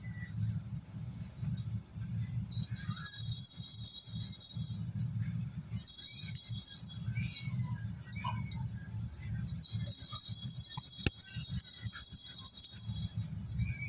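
Bangles on the wrist jingling and clinking in three spells as the hands knead and roll damp crushed slate-pencil mix into balls, over a steady low rubbing of the crumbly mix being squeezed. One sharp click near the end.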